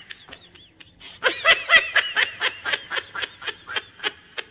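A man laughing hard, starting softly and breaking about a second in into a long run of quick laughs, about five a second.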